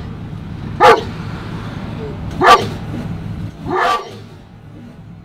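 German Shepherd puppy barking three times inside a car, the barks about a second and a half apart, over a steady low hum.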